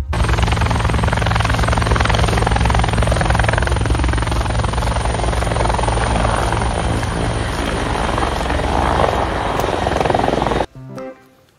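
Loud, steady engine noise with a fast low pulsing, which cuts off abruptly near the end.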